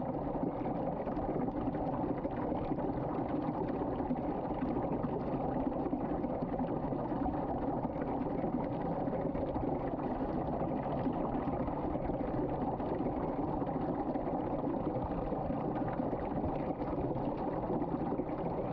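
Water draining steadily through a swirling whirlpool vortex into a sink drain, a continuous even rushing of water.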